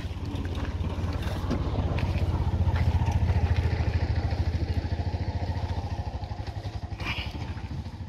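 JCB backhoe loader's diesel engine running with a low, even throb. It grows louder to about three seconds in, then eases back.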